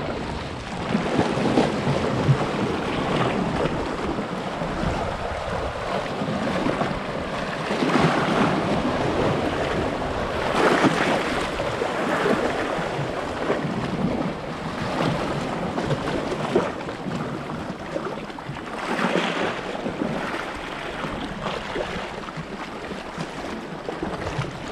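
Sea waves breaking and washing over rocks, swelling in a surge every few seconds, with some wind on the microphone.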